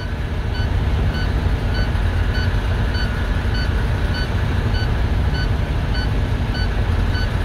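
International HX truck's diesel engine idling, with a back-up alarm beeping at an even pace, a little under two beeps a second, as the Allison transmission is put into reverse.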